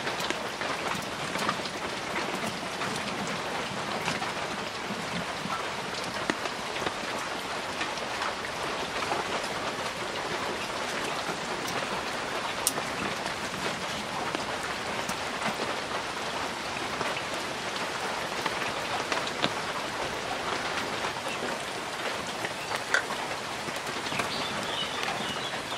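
Ash gourd leaf and lentil pakoras deep-frying in a pan of hot oil, sizzling steadily with scattered small crackles.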